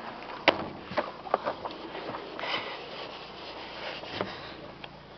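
Rubbing and rustling from a handheld camera being moved about inside a small car's cabin, with a few light clicks and knocks in the first second and a half.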